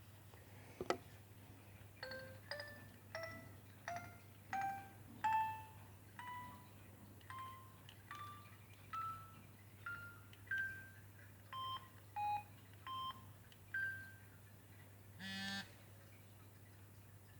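Samsung SGH-B100 mobile phone playing a ringtone: a simple melody of single electronic notes, about two a second, climbing step by step in pitch and then wandering up and down. A short click comes about a second in, and a short buzzy tone comes near the end.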